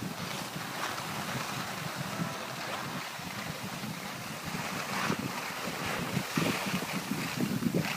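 Wind buffeting the microphone of a camera carried by a skier moving downhill, over the hiss of skis sliding on packed snow. The buffeting gets louder and more uneven in the second half.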